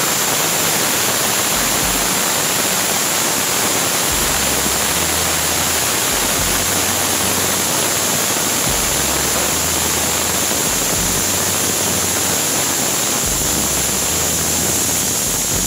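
Pressure cooker whistle releasing steam past its weighted valve in a loud, steady hiss that cuts off suddenly near the end. These whistles are counted to time the cooking: four of them mean the food is done.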